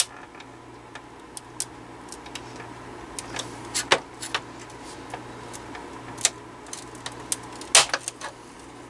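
Flathead screwdriver prying at the brittle plastic tabs of a window fan's grille housing: scattered clicks and creaks of plastic and metal, with two sharper cracks about four and eight seconds in as a stubborn tab, which the repairer thinks was glued, gives.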